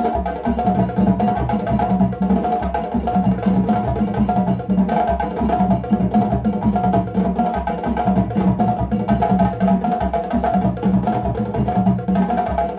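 A djembe drum ensemble plays a fast, dense rhythm together by hand, the strokes running on without a break.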